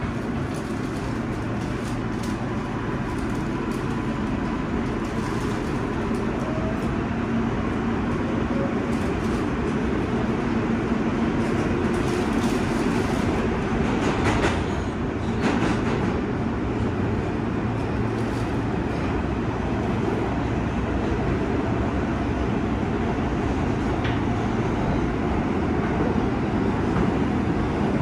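New York City subway L train running along the track, heard from inside the car: a steady rumble of wheels on rail, with a few sharp clicks about halfway through.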